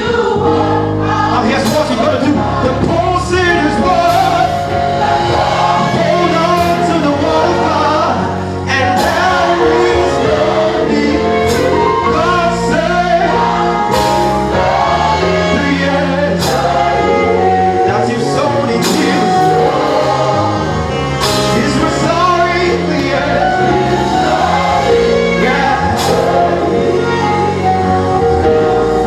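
Live gospel singing: a man leads a praise song into a microphone, with other voices joining in and hands clapping along over accompaniment with held notes.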